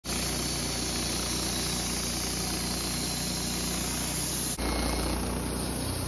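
Wood-Mizer LT15 band sawmill running with its blade cutting through a sugar pine log: a steady engine drone under a dense sawing hiss. The sound briefly drops out and changes character about four and a half seconds in, then carries on.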